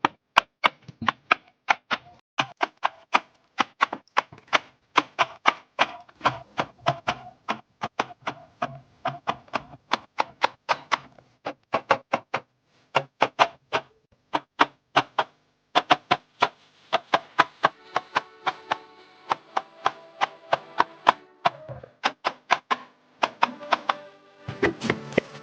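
A rapid, uneven run of sharp taps and clicks, about three or four a second, from kitchen handling. From about two-thirds of the way through, faint steady tones sound beneath them.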